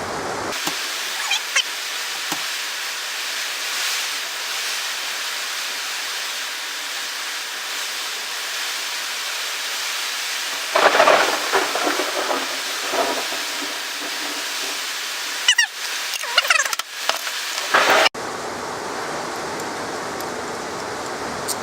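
Steady hiss of heavy rain in a thunderstorm, with louder rushes of noise about halfway through and again around sixteen seconds in.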